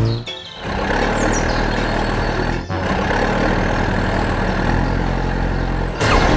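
Heavy vehicle engine running steadily, with a short dip just after it starts and a brief break a little before the middle; a different sound cuts in near the end.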